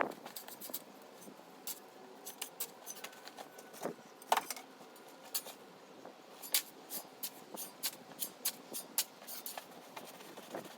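Irregular small clicks and knocks, a few a second, with a louder knock about four seconds in.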